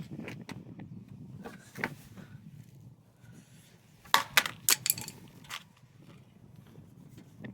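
Sharp clicks and taps of a screwdriver and hard plastic phone parts being handled, with a quick run of about four louder clicks around four seconds in.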